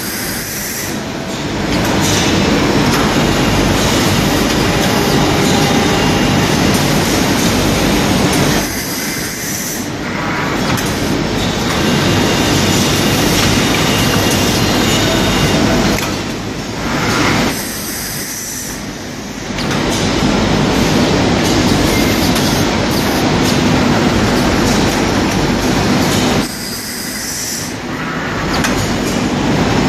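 Glass-lid slab cutting machine running with a loud, dense mechanical noise over a steady low hum. It drops briefly about every eight to nine seconds as the machine works through repeated cycles.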